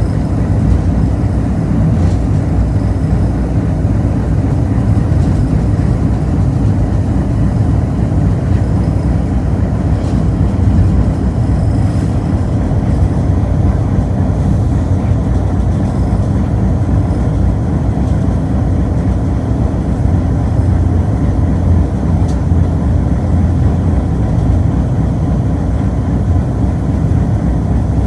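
Steady low rumble of a locomotive, heard from inside its cab while it moves, with a few faint clicks over it.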